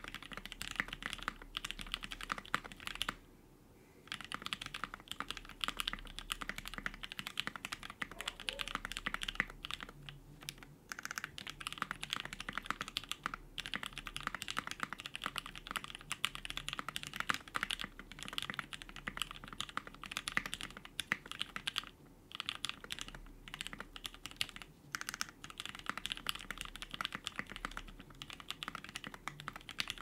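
Continuous fast typing on a custom mechanical keyboard: a Project Keyboards Sirius case with a POM plate and 2 mm case foam, lubed and filmed Tealios v2 linear switches, lubed stabilizers and GMK keycaps, keystrokes following one another quickly. The typing stops for about a second roughly three seconds in, with a few shorter breaks later.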